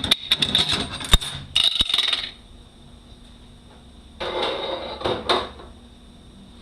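Metal transmission parts and tools clinking and clanking in a quick run of sharp knocks for about two seconds, then a short scraping rattle of metal on metal about four seconds in.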